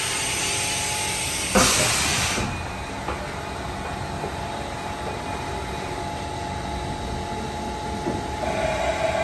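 Haas EC-1600 horizontal machining center running its side-mount tool changer: a steady mechanical hum under a hiss, with a clunk and a short blast of air hiss about a second and a half in. A louder steady hum starts near the end as the changer arm reaches the spindle.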